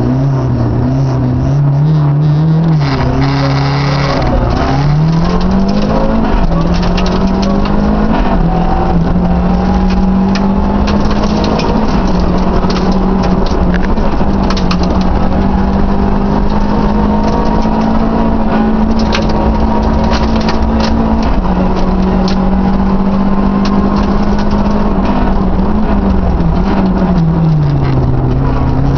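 Renault 5 GT Turbo's turbocharged four-cylinder rally engine heard from inside the cabin, driven hard: its pitch dips and then climbs about five seconds in, holds high and steady for a long stretch, and falls away near the end as the car slows into a tight corner. Sharp clicks and rattles come through along with it.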